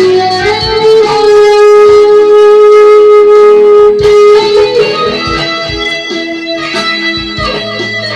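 Electric guitar played lead: one long held note about a second in, then a run of shorter notes.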